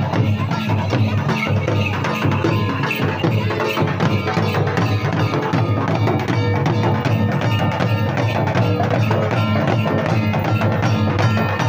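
Santali folk dance music: fast, steady hand-drumming on barrel drums with clacking percussion and a few sustained tones over it.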